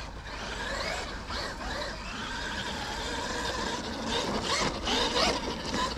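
Traxxas Maxx 4S RC monster truck's brushless electric motor and geared drivetrain whining as it drives, the pitch rising and falling as the throttle is worked.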